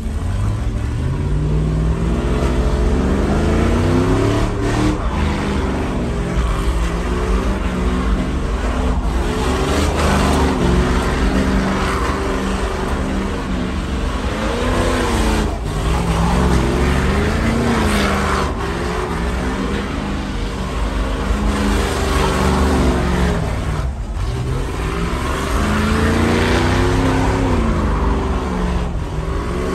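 Chevrolet pickup truck's engine revving hard, its pitch climbing and dropping again and again, while it spins doughnuts with its rear tyres spinning and smoking on the asphalt.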